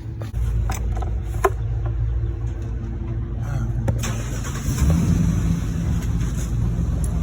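Car engine starting straight away on a replacement battery, after its old battery went bad, then running steadily. A few sharp clicks sound in the first seconds.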